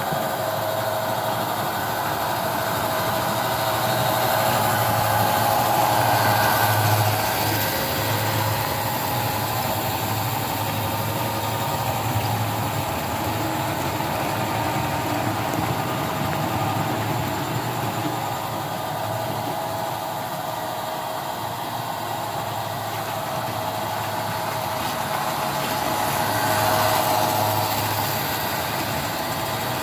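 American Flyer S-gauge model trains, Santa Fe ALCO PA diesel sets, running around the layout: a steady rolling rumble of wheels on the track with a low motor hum. The sound swells twice, about five seconds in and again near the end, as trains pass close by.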